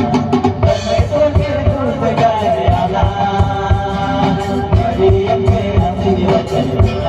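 Group of singers performing a song through microphones and a PA, backed by acoustic guitar and a steady drum beat.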